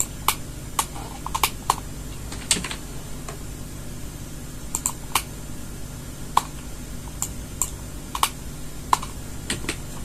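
Irregular clicking of a computer keyboard and mouse during Blender editing: scattered single clicks and quick pairs or short runs of clicks, over a low steady hum.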